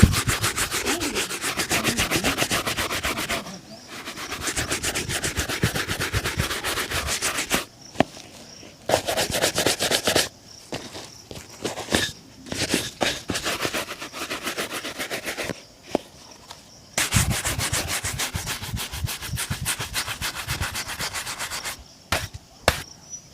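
A shoe being buffed during a shoe shine: quick back-and-forth rubbing strokes in several bouts, separated by short pauses.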